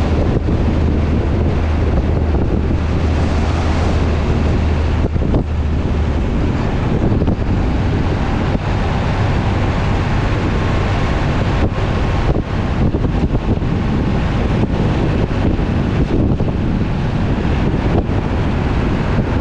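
Wind buffeting the microphone of a camera riding on a moving truck, over a steady rush of road and engine noise. A low engine hum eases off about six seconds in.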